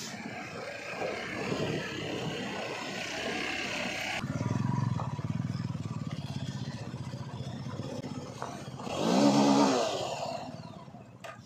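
Motorcycle engine running at low revs, then revved hard about nine seconds in, the pitch rising quickly before it dies away. The first few seconds hold a rougher mix of engine and clattering riding noise that changes abruptly about four seconds in.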